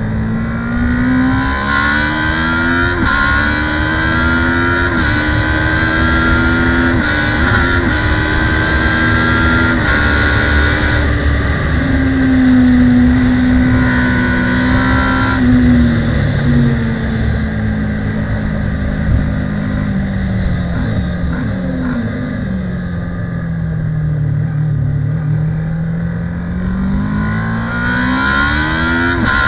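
Kawasaki ER6 650 cc parallel-twin race bike's engine, heard onboard at full race pace. It revs up through the gears with a sharp drop in pitch at each upshift and holds high revs for a few seconds. Then the revs fall away in steps as it slows, and it revs up hard again near the end.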